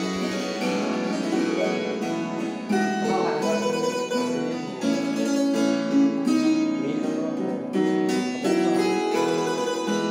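A large wooden harp played by hand. Plucked notes ring on, with a bass line under a flowing melody.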